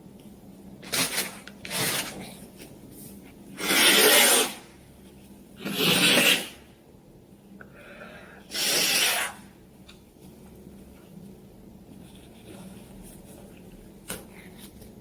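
A person in an allergy attack making noisy, breathy nasal sounds, sniffs or stifled sneezes without voice. Two short bursts come about a second in, then three longer rasping ones about two seconds apart.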